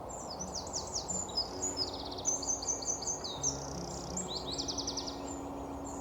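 Songbirds singing: rapid trills and runs of quick high notes, more than one bird at once, over a steady background noise.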